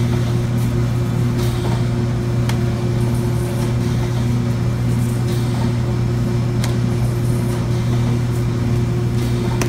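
Flatbed sign printer running, a steady machine hum, with a few faint ticks about two and a half seconds and six and a half seconds in.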